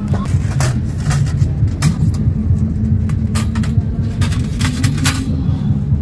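Scattered metallic clicks and clinks as a folding stainless-steel camping grill is handled, lifted out of a canvas bag and turned over. Under them runs a steady low rumble.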